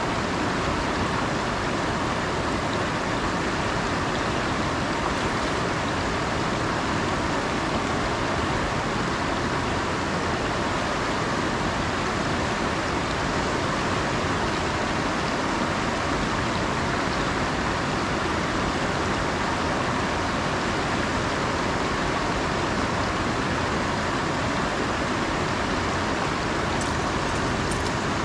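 Shallow trout-stream riffle rushing steadily over rocks.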